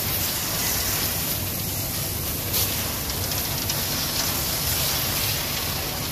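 Hose spray nozzle jetting water into a concrete mixer truck's hopper to wash out leftover concrete and rocks, a steady hissing spray, with the truck's engine running underneath.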